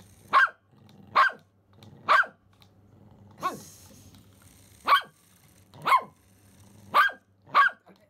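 Pomeranian barking in short, sharp single barks, eight in all at about one a second, excited by a remote-control toy mouse.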